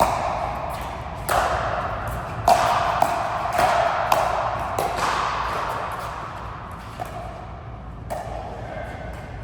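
Irregular sharp hits of a ball and rackets in a rally, each one ringing on in a reverberant hall, busiest in the first half.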